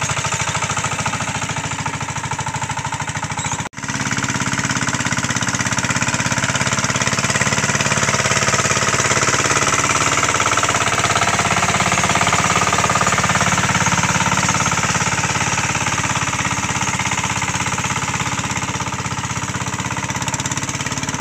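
Two-wheel hand tractor's single-cylinder diesel engine chugging steadily as it tills a flooded rice paddy, with a brief cut-out about four seconds in.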